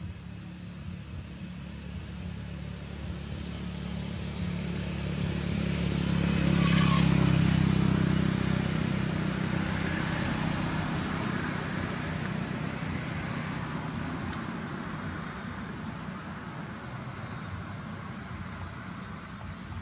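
A motor vehicle's engine passing by, a low hum that grows louder to a peak about seven seconds in and then slowly fades away.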